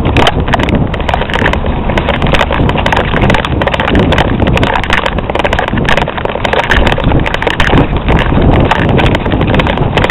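Loud wind buffeting and rumble on the microphone of a camera on the move, with dense, irregular knocking and rattling.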